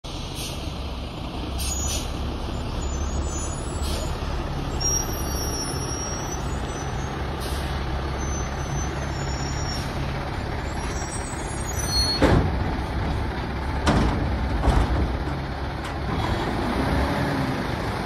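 Engine of a New Way Mammoth front-loading garbage truck running steadily as the truck pulls in and stops. There are sharp air-brake hisses about 12 and 14 seconds in.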